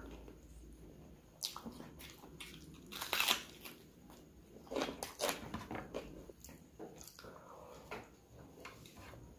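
Close-miked eating: a man chewing chicken curry and rice, with wet lip smacks and mouth clicks, and sucking curry off his fingers.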